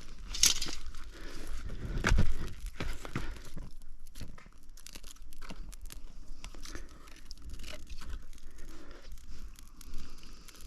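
Irregular rustling and crinkling with scattered sharp knocks and clicks, the sound of camp gear or materials being handled. The loudest knock comes about two seconds in.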